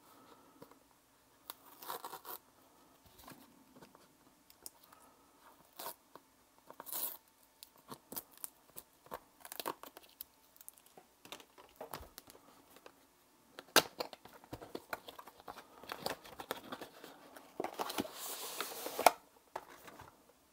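Product box and its packaging being opened by hand: tearing and crinkling with scattered sharp clicks and taps, and a longer, louder tearing rustle near the end.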